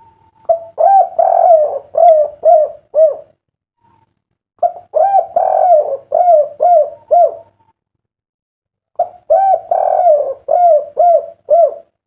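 A spotted dove (derkuku) cooing its 'kuk 3' song: three phrases a few seconds apart, each a longer coo followed by a quick run of short notes.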